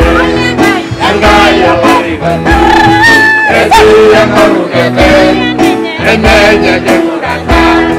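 Choir singing with instrumental backing and a steady bass and drum beat, one voice holding a long high note about three seconds in.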